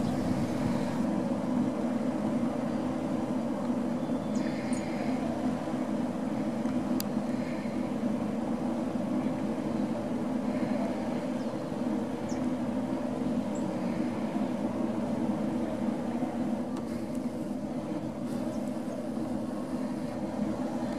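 Steady industrial drone from a potato-chip factory's rooftop exhaust stacks: a constant mechanical hum made of several steady tones, the nuisance noise the factory puts out over the neighbourhood.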